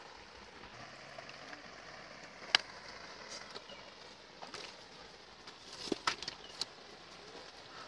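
Shallow stream running over a stony bed: a faint, steady rush of water. A few sharp clicks cut through it, the loudest about two and a half seconds in and a small cluster around six seconds.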